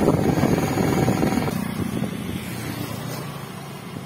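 Butt fusion welding machine running with a steady mechanical drone while it presses the two heated HDPE pipe ends together. The drone is loud for about the first second and a half, then drops to a lower level.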